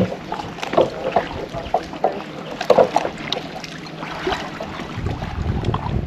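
Calm sea water lapping and sloshing against rocks and a wooden deck, with small irregular splashes. About five seconds in, wind starts buffeting the microphone with a low rumble.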